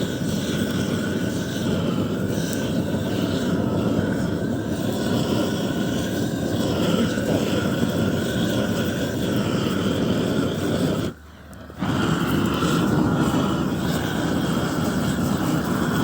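Blowtorch flame burning steadily as wooden boards are scorched to keep them from rotting. The noise cuts out for under a second about eleven seconds in, then resumes.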